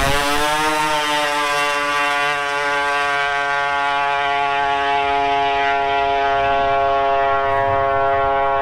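Snowmobile-engined two-stroke triple drag bike on a pass. The engine note climbs briefly in the first second, then holds one steady high pitch with no gear changes.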